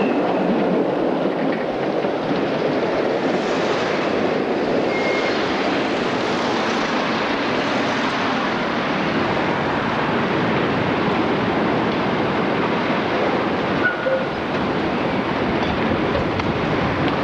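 Street traffic at a tram junction: a tram running along its rails and cars passing on a wet road, making a steady rushing noise with a few faint brief squeals.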